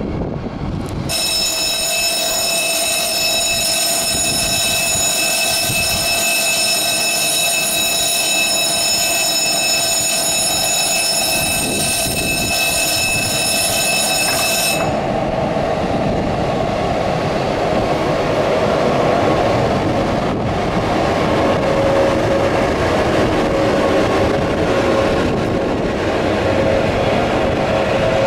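A level crossing bell rings steadily and stops about halfway through. Throughout, an SJ electric locomotive and its passenger coaches rumble past, the train noise growing louder as it departs the station.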